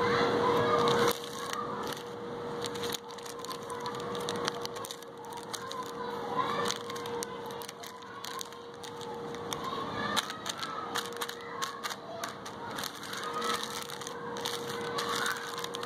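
Crinkling and crackling of plastic candy-bar wrappers (Hilal Wispy wafer roll packets) as they are handled and shuffled, with many small sharp crackles. A steady faint hum runs underneath, and a louder sound cuts off about a second in.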